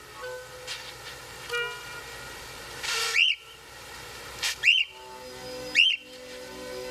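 Short whistle-like chirps, three times, each gliding quickly up and back down in pitch, over soft background music with long held notes.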